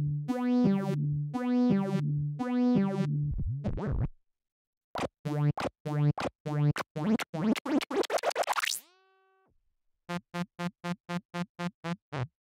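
Synth notes fed through FL Studio's Vintage Phaser delay set to high feedback, so the echoes keep repeating. After a few sustained notes, the last one sliding down, the repeats come faster and faster and sweep upward in pitch, then settle into an even stream of short echoes about four a second.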